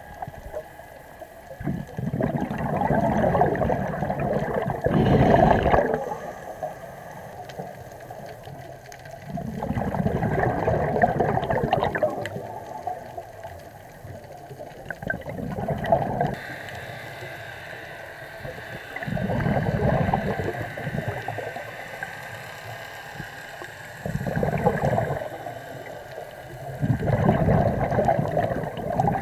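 Scuba regulator exhalations heard underwater: a gurgling rush of bubbles every four to five seconds, each lasting two to three seconds, between quieter breaths in.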